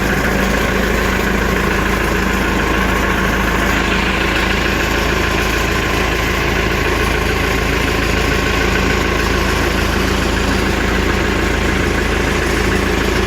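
Caterpillar backhoe's turbocharged diesel engine running steadily while it warms up after a cold start: a low rumble with a steady higher whine over it from the turbo.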